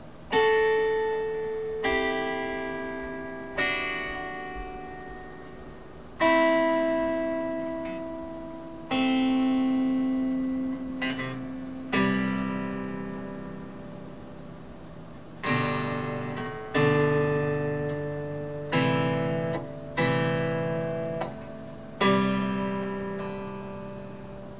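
Homemade Douglas fir zither strummed by hand in slow chords, about a dozen of them, each ringing out and fading before the next is struck.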